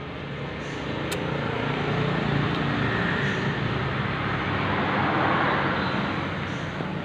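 Suzuki Satria FU 150's single-cylinder engine running steadily, freshly rebuilt and sounding smooth. It grows louder about a second in and eases off near the end.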